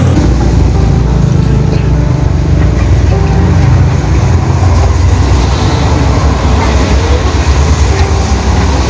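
A motor vehicle's engine running close by: a loud, steady low rumble.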